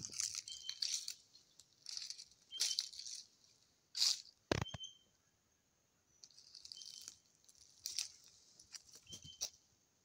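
Irregular bursts of rustling and crackling, with one sharp knock about halfway through and a short, high chirp heard now and then.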